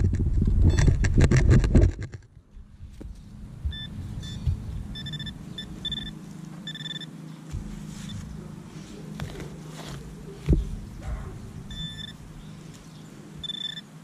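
Nokta Makro Simplex metal detector giving short, high-pitched target beeps in clusters as the coil is swept back and forth over a target, a signal that could be a silver dime. The first two seconds hold loud rustling and scraping, and there is a single knock later on.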